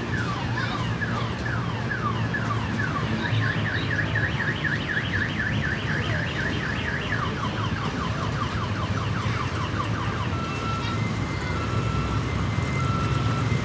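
Electronic warbling siren-like sound effect, rapid chirping sweeps several a second, switching about ten seconds in to short two-tone beeps, over a steady low hum, as from an amusement-park kiddie train ride.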